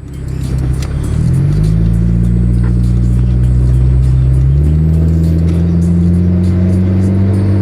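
2003 Volkswagen Jetta 2.0's inline-four engine and exhaust droning steadily at raised revs, the pitch stepping up slightly about a second in and again a few seconds later.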